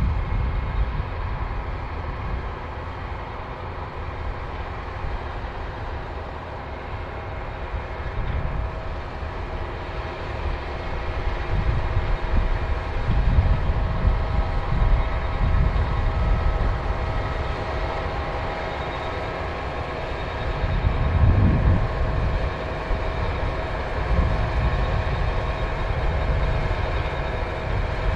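New Holland combine harvester running steadily while harvesting barley, its engine and threshing machinery giving a continuous hum with a low rumble. The sound swells louder twice, around the middle and again later.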